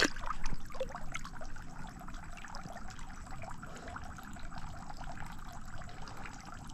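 Water trickling and lightly splashing as a redfish is held in the creek water for release, with small irregular splashes that are a little louder about half a second in.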